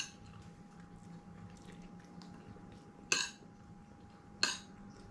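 Cutlery clinking against a dish while eating a meal of soup: a few short, sharp clinks, one at the start, one about three seconds in and one near the end.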